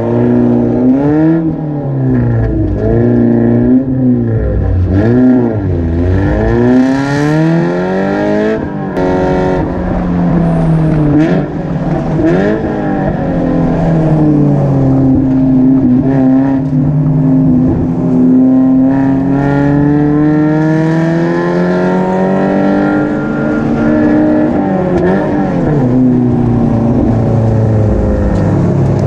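Race car engine under hard use on a racing circuit: loud, climbing and dropping in pitch through gear changes and braking in quick succession, then held high and slowly rising for several seconds on a long stretch of full throttle, before falling off again near the end.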